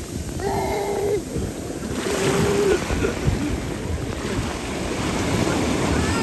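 Sea waves washing onto the beach, with wind rumbling on the microphone.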